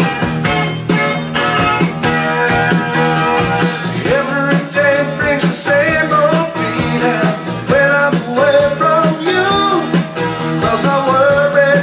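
A 1970s rock song with electric guitar and band playing back from a vinyl LP on a turntable. Singing comes in about four seconds in.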